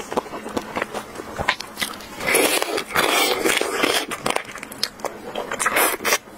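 Close-up eating sounds: biting and sucking at crab shell and legs, with many small sharp cracking clicks and a longer stretch of sucking from about two to four seconds in.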